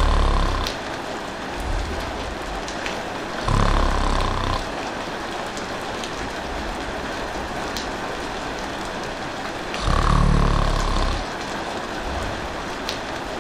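Steady rain falling, with a person snoring: a deep snore about every few seconds, one fading just after the start, another about three and a half seconds in and a longer one near ten seconds in.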